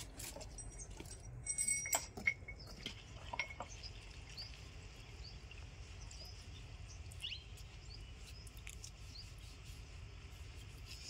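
A few light metallic clinks about one and a half to two and a half seconds in, as steel engine main bearing shells are handled, then scattered faint high bird chirps over a low steady background rumble.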